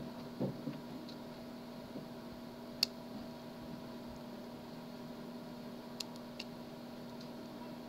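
A few faint, sharp ticks of a lock pick working the pins inside a Master Lock padlock, the loudest nearly three seconds in and two more a little after six seconds. A steady low hum runs beneath.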